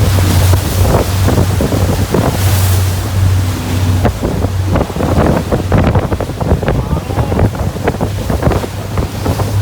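Tour boat's engine running with a steady low hum under loud rushing water, with wind buffeting the microphone in irregular gusts.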